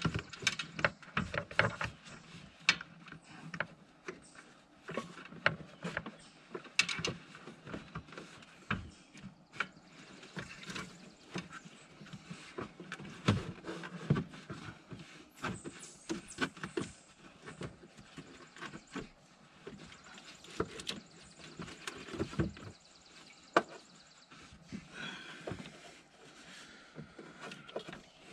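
Irregular clicks, knocks and rustling of hands and tools refitting a radiator hose and its hose clamp.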